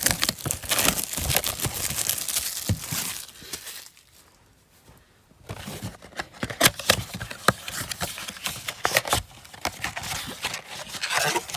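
Crinkling and tearing of wrapping and cardboard as an NBA Hoops Premium Stock blaster box of trading cards is unwrapped and opened by hand. It goes in a dense run of crackles, quietens for a second or so about four seconds in, then resumes as a string of sharp crinkles and clicks.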